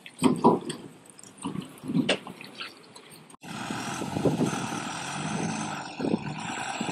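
Heavy multi-axle trucks on a muddy, potholed dirt road: irregular squelching and splashing of tyres through mud and puddles, then from about three and a half seconds in, a steady diesel engine running under load with tyres grinding over the dirt track.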